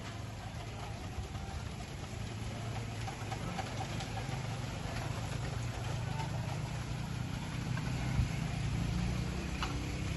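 An engine running steadily, its low hum growing slowly louder.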